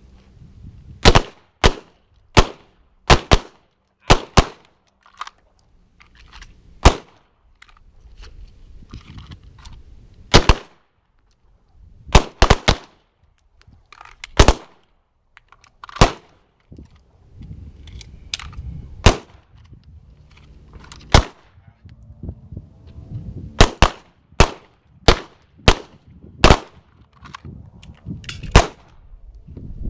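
Handgun shots from several shooters firing on a line: about two dozen sharp single cracks at uneven spacing, sometimes two close together, with pauses between. These are draw-and-fire single shots at target dots, each followed by a reholster.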